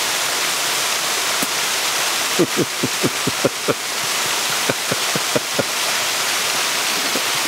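Steady rushing of a waterfall and stream. Around the middle come two quick runs of short clicks.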